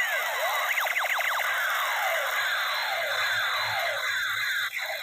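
Toy space gun's electronic laser sound effect firing over and over: rapid overlapping pitch sweeps, rising at first and then mostly falling, through a small speaker. It breaks off briefly near the end.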